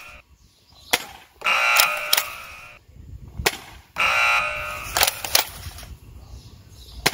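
Nerf Rival Pathfinder pump-action spring blaster firing foam rounds. There are three sharp shots about two and a half seconds apart, and after each of the first two comes a rattling pump of the priming slide lasting about a second.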